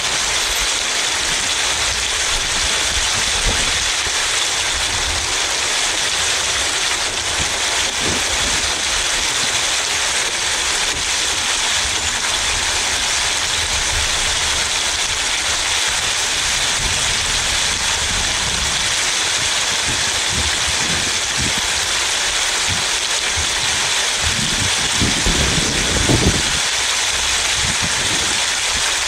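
Steady hiss of a car driving through rain on a wet road, the rain and the tyres' spray heard from inside the car by its side window. A brief low rumble rises and fades near the end.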